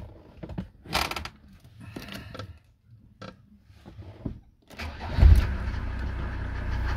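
Mercedes W124 250D turbo's five-cylinder turbodiesel being started: a few clicks and knocks, then about five seconds in a brief crank, and the engine fires at once and settles into a steady idle. It starts instantly, with no sputtering or choking.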